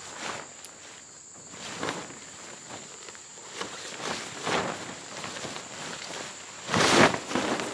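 A British Army basha tarp's coated synthetic fabric rustling and flapping as it is unfolded and shaken out, in a few swishes, the loudest near the end. A steady high chirring of insects, such as crickets, runs underneath.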